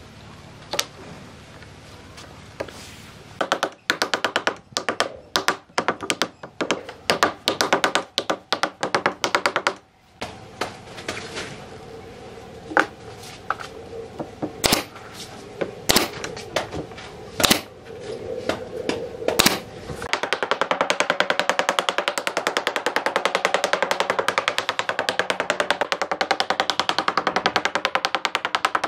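A nail gun firing repeatedly into a wooden frame: sharp shots in quick runs, then single spaced shots. About two-thirds of the way in it gives way to background music with a quick, even beat.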